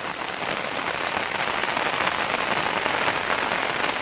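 Heavy rain falling steadily onto standing floodwater and wet ground, a dense even hiss that grows a little louder about a second in.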